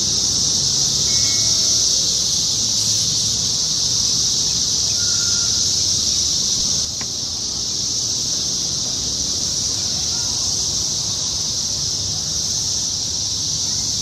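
Loud, steady chorus of periodical cicadas: one continuous high-pitched drone that never breaks, dipping slightly in level about halfway through.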